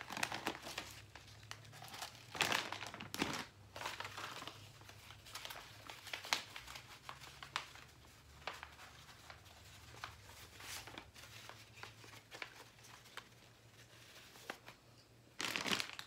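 Crinkling of a plastic bird-seed bag being handled, then the rustle of a sheet of paper being rolled into a funnel, with irregular crackles, loudest in the first few seconds.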